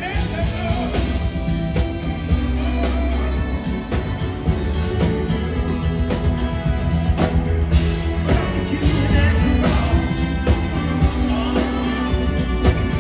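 A live band playing a pop-rock song: bass guitar, electric guitar and a drum kit, with a male lead vocal.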